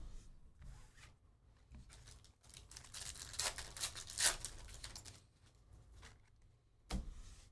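Foil trading-card pack wrapper being torn open and crinkled, loudest a few seconds in, followed by a single knock near the end.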